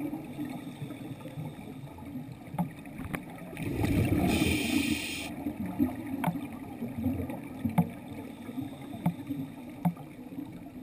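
Muffled underwater sound around a submerged action camera: low water noise with scattered sharp clicks. A louder hiss runs for about two seconds near the middle.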